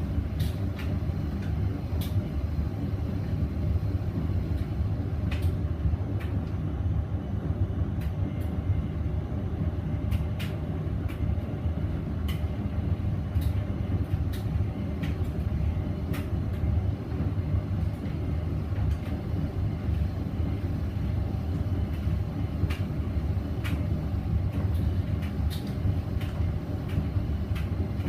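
Hoover VisionDynamic washing machine running: a steady low rumble with scattered light clicks.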